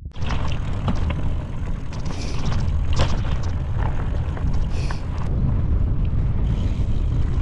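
Wind rushing over the microphone and the rumble of tyres on a rough dirt road as a fully loaded gravel bike rolls downhill, with scattered clicks and knocks from the bike.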